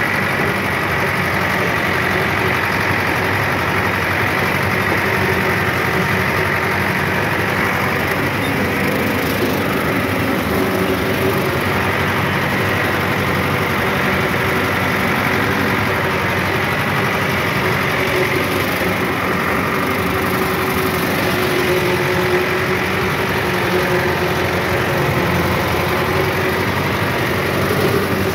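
Ford 6600 tractor's three-cylinder diesel engine running steadily while slashing grass, with a steady whine over the engine drone.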